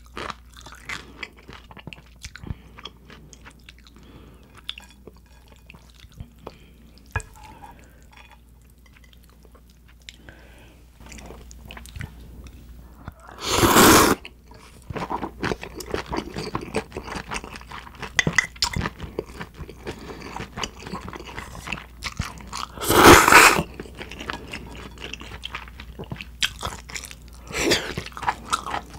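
Close-up mouth sounds of eating spicy cold noodles: steady wet chewing with small clicks, broken by two loud slurps of noodles about halfway through and again later, and a smaller one near the end.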